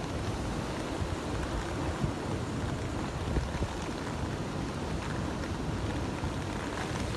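Typhoon-driven surf breaking at a harbour breakwater, a steady rushing roar with strong wind buffeting the microphone as an irregular low rumble.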